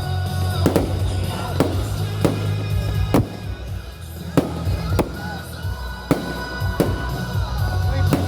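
Festive fireworks going off, a sharp bang roughly every second, about ten in all, over loud music with a steady bass.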